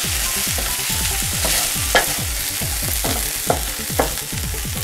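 Mashed fava beans sizzling in a nonstick frying pan while a wooden spatula stirs and scrapes them around the pan in repeated strokes, with a few light clicks.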